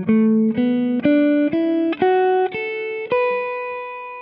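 Clean electric guitar playing the B minor pentatonic scale upward, one picked note about every half second. The last note is held and rings for over a second before it stops.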